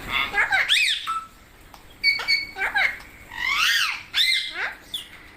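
Pet green parrot making a series of short squawking calls, each rising and falling in pitch, about six in quick succession with brief pauses between them.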